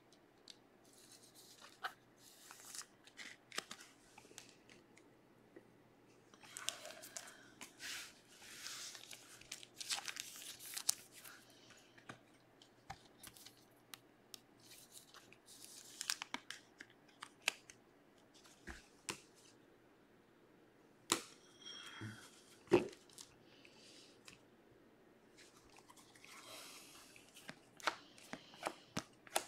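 Trading cards and thin plastic card sleeves being handled: faint bursts of rustling and crinkling as cards are slid into sleeves and shuffled, with a few sharp clicks and taps.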